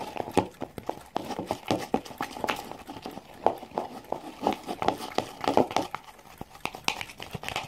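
Homemade slime being worked by hand and stirred in a bowl: a steady run of irregular sticky clicks and squelches, several a second.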